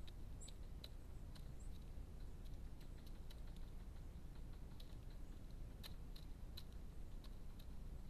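Wood pigeon pecking food from a dish: faint, irregular sharp clicks of its bill, a few a second, over a low steady hiss.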